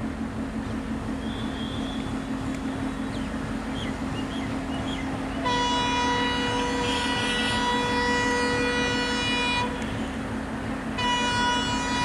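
Diesel locomotive horn of an approaching express train. It gives one long blast of about four seconds starting a little over five seconds in, then a second blast about a second after the first ends that carries on. A steady low hum sits underneath.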